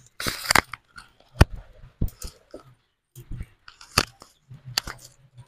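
A clay pot scraping as it is set onto a wood-fired clay stove, then scattered sharp cracks and pops from the burning firewood beneath it.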